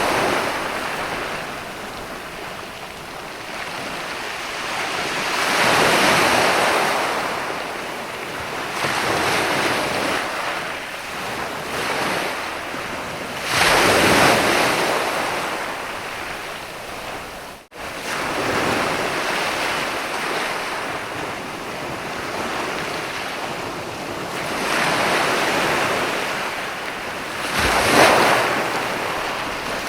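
Ocean waves breaking on a sandy beach: surf washing in and receding in slow swells every several seconds, the loudest breaks near a quarter, near halfway and near the end. There is a brief dropout a little past halfway.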